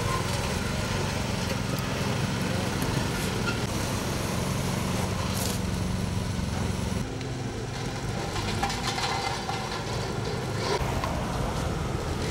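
Small engine of a ride-on road roller running steadily; its note and level shift about seven seconds in.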